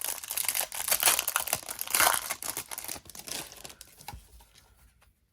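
Wrapper of a Topps baseball card pack being torn open and crinkled by hand, a dense crackling that fades out about four and a half seconds in.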